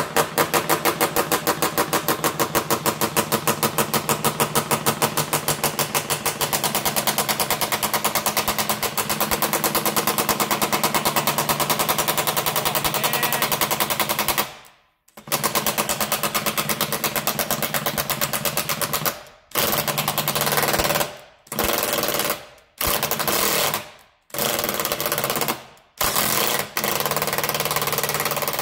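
Cordless DeWalt impact wrench hammering on a tight, rusty 12 mm bolt: a long unbroken run of rapid impacts, a brief stop about fourteen seconds in, then a string of shorter bursts with short pauses as the stubborn, seldom-touched bolt is worked loose.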